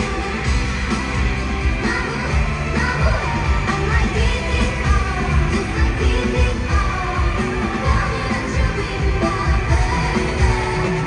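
Live K-pop performance through a stadium sound system: a pop song with a heavy steady beat and female vocals.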